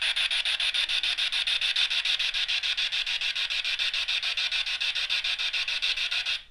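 Spirit box sweeping through radio stations: hissing static chopped into rapid, even pulses, about eight a second, with no voice coming through. It cuts off suddenly near the end.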